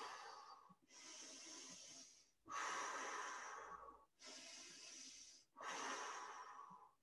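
A woman breathing slowly and deeply, faint, in and out: about five breaths of roughly a second and a half each, alternating softer and stronger, with short pauses between.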